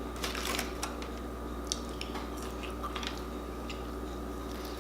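Close-up chewing and biting: soft, wet mouth clicks of someone eating, scattered irregularly over a steady low hum.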